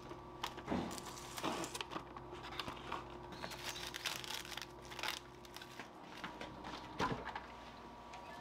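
Plastic cling wrap being pulled from its box and crinkled as it is stretched and pressed over a plate, in irregular crackles and rustles for about five seconds. A single knock follows about seven seconds in, over a faint steady hum.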